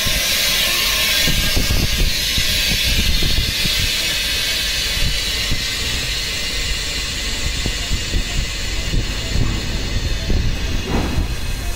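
Compressed air hissing steadily from a phone-repair bubble-remover pressure chamber, starting suddenly and fading slowly, over a low irregular rumble. The chamber is letting out its pressure at the end of the de-bubbling cycle.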